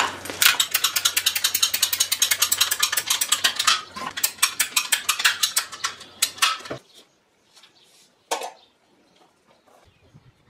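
Ratcheting hand pipe cutter clicking rapidly, about ten clicks a second with a short pause, as its handle is pumped to cut through a rubber hose. The clicking stops about two-thirds of the way in, and one knock follows a little later.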